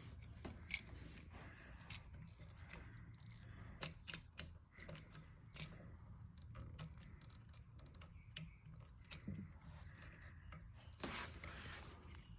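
Faint, scattered small clicks and rubbing from hands working the light switch and its wiring, over a low steady hum.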